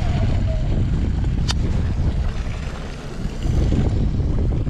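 Wind buffeting the microphone over a steady low rumble from the boat and sea, with a single sharp click about a second and a half in.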